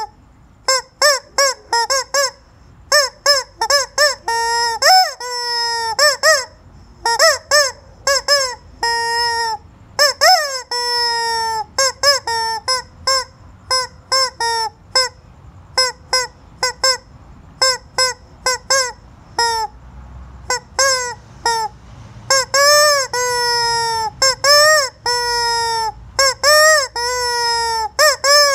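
A chicken squawking loudly in short, honking calls that rise and fall in pitch, about one or two a second, some held longer, with a brief lull about two-thirds of the way through.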